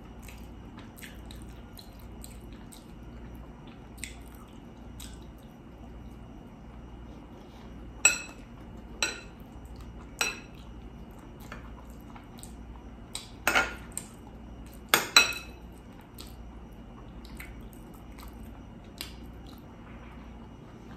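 Cutlery clinking against a dish or food container, with about six sharp clinks between the middle of the stretch and a little past it, the last two close together. Fainter small clicks run in between, over a faint steady hum.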